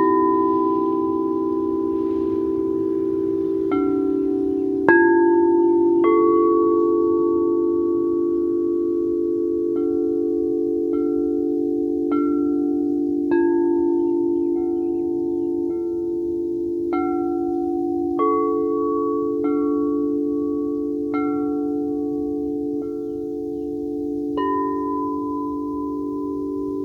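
Several singing bowls sounding together in a chord, struck over and over, a new strike about every second. Each strike rings on and overlaps the steady low tones of the others.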